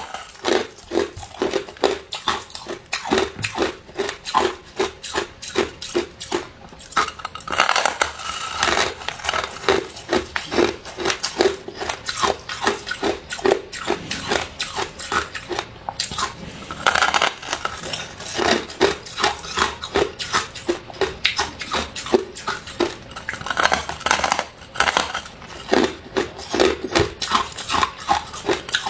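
A person biting into and chewing a block of packed crushed ice: rapid, continuous crunching and crackling, with a few louder bursts of crunching.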